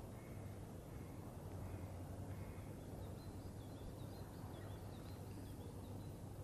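Quiet outdoor ambience with faint distant bird calls: a few short calls in the first couple of seconds, then higher twittering from about three seconds in, over a steady low hum.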